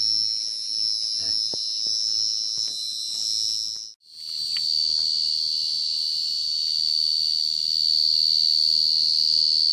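Dense chorus of calling field crickets: a loud, steady high-pitched trill that drops out for an instant about four seconds in and then resumes. A few faint rustles of leaf litter underfoot.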